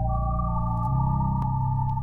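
Electronic music: held synthesizer chords over steady bass notes, with the bass moving to a new note about a second in.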